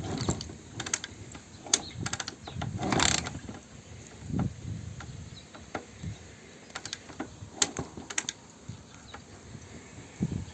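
Irregular clunks, clicks and short scuffing bursts from a 1979 Honda XL 500 S being handled before a cold start, with the engine not running.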